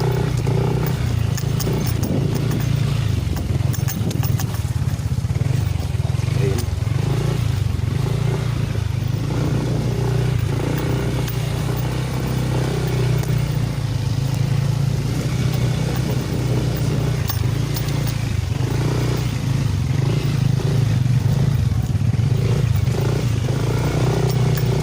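Motorcycle engine running at steady low revs while riding a rough trail, with faint scattered clicks.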